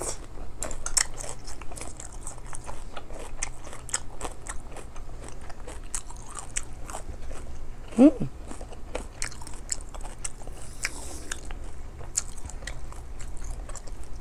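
Close-up chewing and wet mouth clicks of someone eating rice, tofu and kimchi, with soft crunches. About eight seconds in there is one short hum that falls in pitch.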